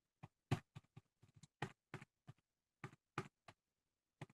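Faint computer-keyboard typing: about a dozen short, irregular key clicks, sometimes several in quick succession.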